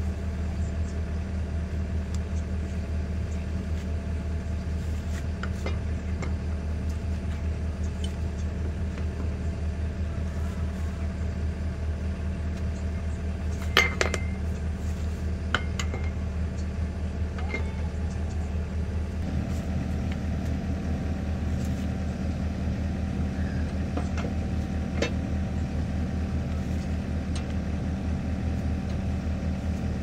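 An engine idling steadily, with a few sharp metal clinks of a long wrench on the wheel nuts. The loudest clink comes about halfway through.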